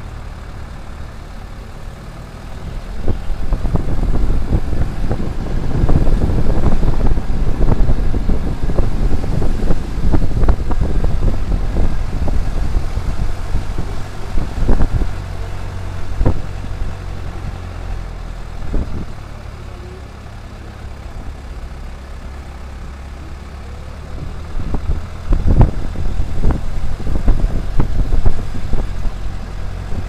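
A vehicle's engine running steadily at low speed, heard from inside at an open side window. Two long stretches of irregular knocks, rattles and rushing noise, typical of jolting over a rough lane, come and go over it.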